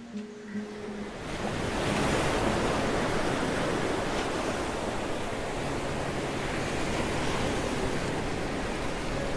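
The last guitar notes of the background music end about a second in, giving way to a loud, steady rushing outdoor noise, such as surf or wind on the microphone.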